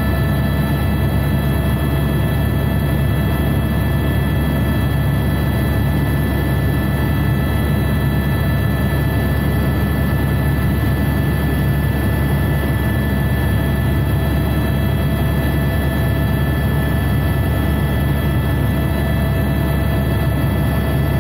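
Helicopter in flight heard from inside the passenger cabin: the steady drone of rotor and turbine engine, a deep hum with several constant high whining tones over it.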